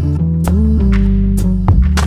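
Background music: a steady bass line under held pitched notes, with sharp drum hits at intervals.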